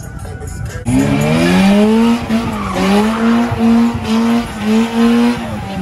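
Car engine revving hard in a burnout donut, the tyres squealing and spinning. The engine comes in loud about a second in, climbs, and is held high in repeated pulses of revs.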